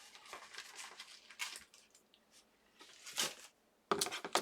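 Rustling and light knocks of hands moving craft supplies and cut paper on a work table, with a louder short burst about three seconds in and more handling noise near the end.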